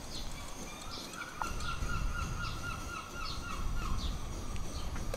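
A bird calling outdoors: short high chirps repeating every half second or so, and about one and a half seconds in a rapid, even run of repeated notes lasting about two seconds. A low steady rumble of wind or surf sits underneath.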